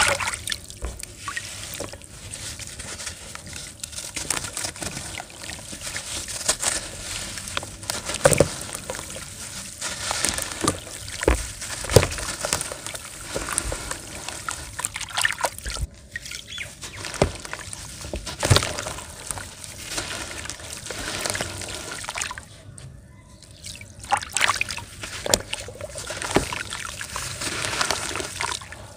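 Hands swishing and scooping muddy water in a plastic tub as dirt crumbles into it: irregular sloshing and splashing with trickles of water falling from the hands, easing off briefly about three-quarters of the way through.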